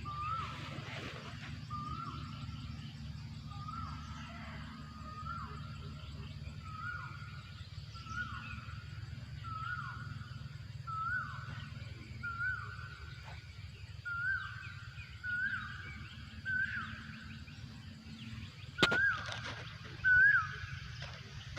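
Asian koel calling a long series of 'ko-el' notes about one a second, each a short rising then falling whistle, the series climbing in pitch and getting louder. A steady low hum runs underneath, and a sharp knock sounds near the end.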